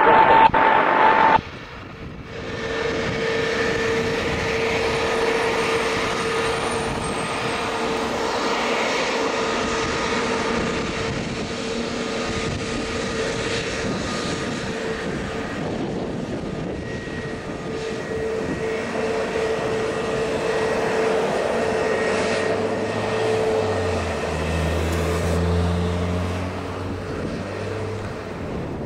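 Airbus A321neo's CFM LEAP-1A turbofan engines running at taxi power: a steady jet whine with a held tone over a rushing hiss. A lower hum joins in for a few seconds near the end.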